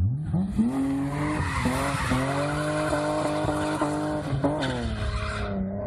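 BMW 3 Series car engine revving up sharply and held at high revs, with tyres squealing as the car slides through a corner. The revs dip briefly a couple of times, then drop away near the end.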